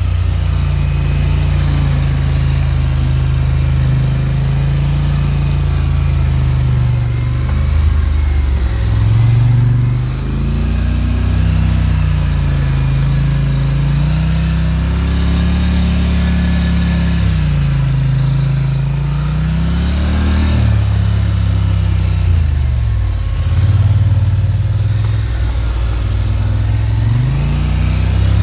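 Polaris quad ATV engine running under way off-road, its pitch rising and falling again and again as the throttle is opened and eased over the rough ground.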